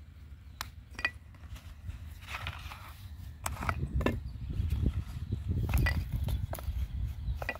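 Scattered sharp clicks and clinks as a large knife is drawn from a leather sheath and set down on a wooden stump, over a low rumble that grows louder about halfway through.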